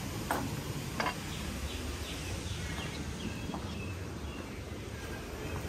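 Outdoor ambience: small birds chirping faintly over a steady low background noise, with a couple of brief clicks near the start.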